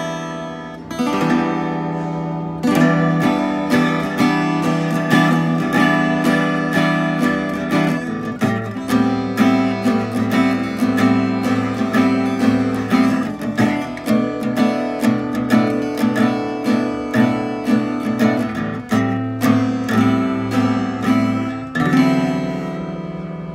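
Giannini Craviola CRA36S acoustic guitar strummed with a pick, a steady rhythm of chords at about two strokes a second. Near the end a last chord is left to ring out.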